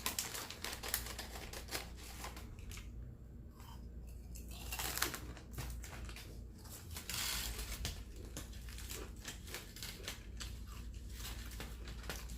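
Close-miked chewing of a bite of homemade burger: many small crunches and wet mouth clicks, louder about five seconds in and again around seven seconds.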